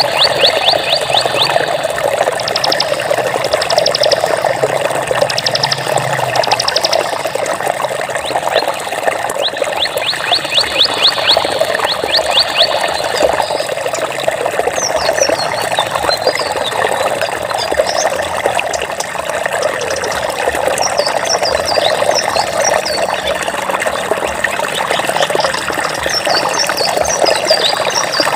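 Water flowing steadily, a continuous rushing trickle. Over it, rapid high clicking trills come in short runs in the first half, and short high chirps follow through the second half.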